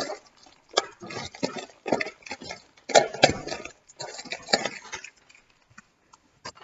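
Cellophane wrap crinkling and crackling as it is peeled off a trading card box, in irregular bursts of clicks and rustles that thin to a few scattered clicks about five seconds in.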